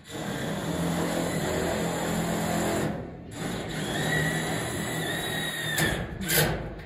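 Engine of an all-terrain scissor lift running steadily, with a steady high whine for about two seconds in the second half and two sharp knocks near the end.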